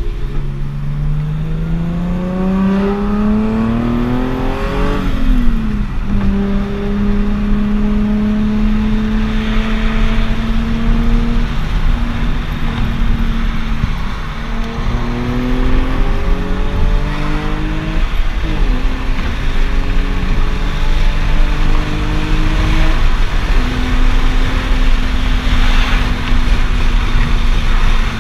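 Nissan 370Z's 3.7-litre V6, fitted with Stillen G3 long-tube cold air intakes, pulling under acceleration. Its pitch climbs and then drops at an upshift about five seconds in. After a steadier stretch it climbs again and shifts about eighteen seconds in.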